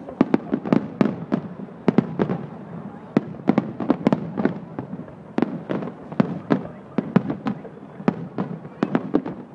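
Fireworks display: aerial shells bursting in a rapid, irregular string of bangs, several a second, with a brief lull about halfway through.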